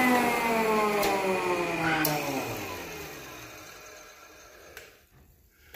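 Grizzly G1021 thickness planer switched off and coasting down: a falling whine from the motor and cutterhead that fades away over about four seconds. Two sharp clicks a second apart mark the cotter key on the drive chain's connecting link striking the chain tensioner.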